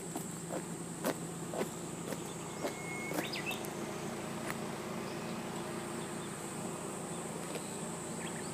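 Footsteps on wet asphalt, about two a second, fading after three seconds. Under them run a steady high insect drone and a low hum. A short whistle and a chirp come about three seconds in.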